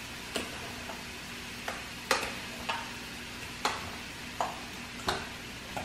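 Metal spoon clinking and scraping against a stainless steel saucepan while stirring mashed potatoes: about nine separate clinks, irregularly spaced, the loudest a little past two seconds in, some ringing briefly.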